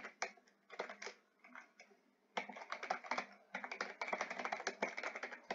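Computer keyboard typing: a few short bursts of keystrokes at first, then fast, continuous typing from about two and a half seconds in.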